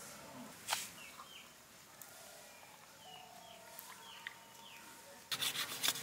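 Birds chirping faintly in the background, short falling calls scattered through. A single sharp tap about a second in, and a quick run of louder taps near the end.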